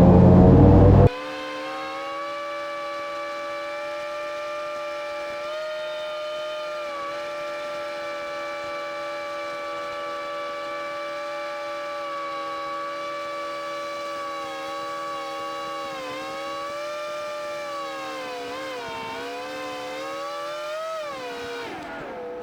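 Airboat engine and propeller droning steadily while cruising, a single held pitch with many overtones. The pitch wavers up and down several times near the end as the throttle changes.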